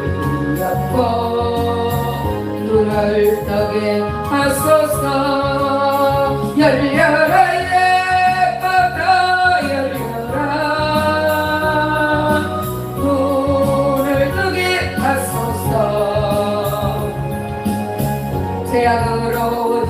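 Gospel song: a solo voice sings long, wavering held notes over an instrumental accompaniment.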